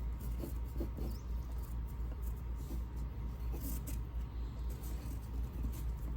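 Pencil scratching on paper in short, scattered strokes, over a steady low hum.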